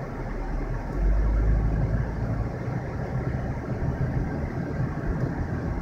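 2010 Toyota Prius's 1.8-litre four-cylinder petrol engine cutting in about a second in and running at around 2,000 rpm, a low rumble heard from inside the cabin over road and air-conditioning noise. The hybrid battery is overheated, which keeps the engine running almost continuously.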